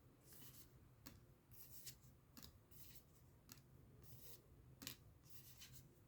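Faint paper rustling and light ticks in short separate bursts: trading cards being handled and slid past one another as a fresh booster pack is gone through.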